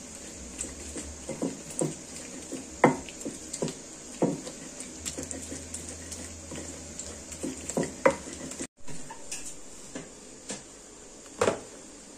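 Stone pestle knocking and grinding against a stone mortar (cobek and ulekan) as green-chilli sambal is pounded, in irregular strokes about once or twice a second. After a brief break, a couple more knocks come near the end.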